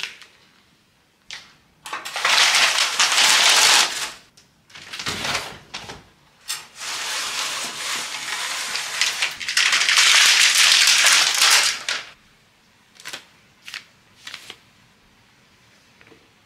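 Horizontal window blinds rattling in loud noisy bursts as they are pulled and adjusted, the longest lasting about five seconds. A few light clicks and knocks follow near the end.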